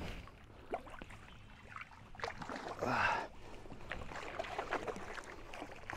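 A carp shot with a bowfishing arrow being hauled in by hand on the line: soft water noise with scattered light knocks against the boat. A short voiced exclamation comes about three seconds in.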